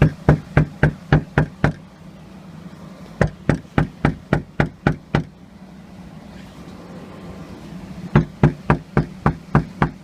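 Knocking on a locked door: three rounds of quick, hard knocks, about four a second, with pauses between them. A steady low hum runs underneath.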